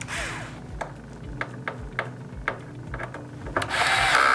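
Light ticks and clicks of a small screw and screwdriver bit being worked, then near the end a short whir of a small cordless electric screwdriver tightening a screw down onto a ground lead.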